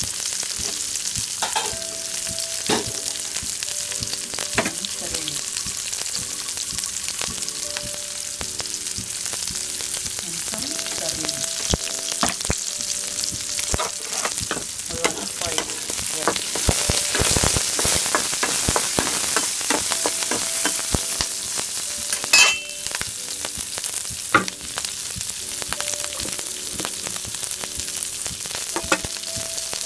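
Tempering of onion, mustard seeds, black gram and curry leaves sizzling in hot oil in a kadai, with occasional clicks and scrapes as it is stirred. The sizzle grows louder for a couple of seconds about halfway through, and there is one sharp clack shortly after.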